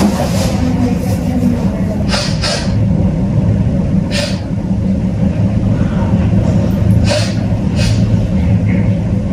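Steady low machine hum, with a few short breathy noises over it.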